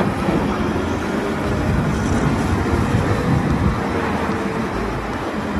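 Caterpillar 992G wheel loader's diesel engine running under load as it tips a bucketload of dark earth into a dump truck, the material pouring out of the bucket. The sound is a steady, dense rumble.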